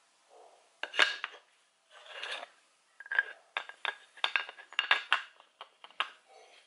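Clinks, knocks and rubbing as a drilled mounting plate and small metal parts are handled and set against each other. There is a sharp knock about a second in, then a quick run of small clicks and clinks through the middle and latter part.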